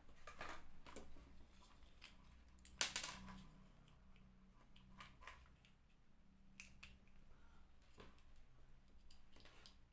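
Faint scattered clicks and rustles of hands handling a small plastic motorcycle handlebar on/off switch and its wiring, with one louder rustle about three seconds in, over a low steady hum.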